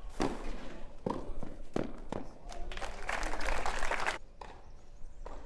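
Tennis ball being hit in a rally: four sharp racket strikes spread over the first two and a half seconds, then about a second of dense noise that cuts off sharply.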